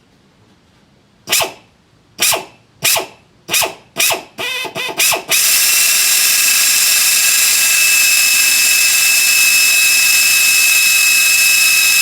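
Power drill run in several short trigger bursts, then held at a steady high whine for about seven seconds. It is drilling out a stripped valve-cover bolt hole in the cylinder head to take a helicoil.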